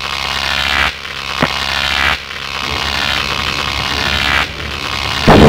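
Sci-fi energy-attack sound effects: a crackling electric noise comes in repeated surges that build and cut off abruptly. A louder blast comes just before the end.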